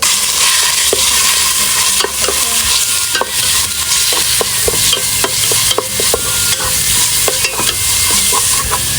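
Ground pork and garlic sizzling in hot oil in a soup pot as the meat is stirred and fried, with scattered light clicks of the stirring utensil against the pot.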